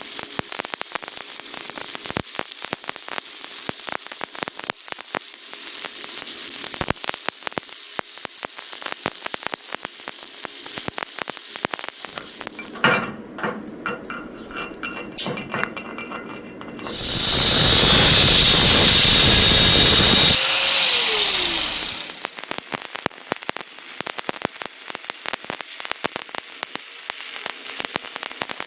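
Stick (SMAW) welding arc crackling and sizzling steadily as a vertical-up 3G weld is run. Partway through, the crackle breaks off for a few clicks, and then a power tool such as an angle grinder runs loudly for about three seconds and winds down in falling pitch before the arc crackle resumes.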